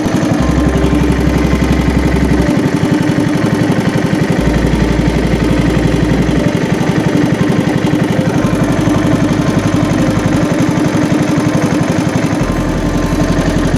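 A small engine running steadily at low speed, with an even, rapid firing rhythm.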